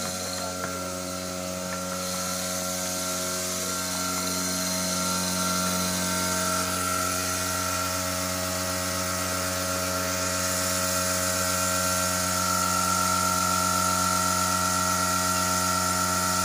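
Electric milking machine running, its motor and vacuum pump giving a steady, even hum that grows slightly louder.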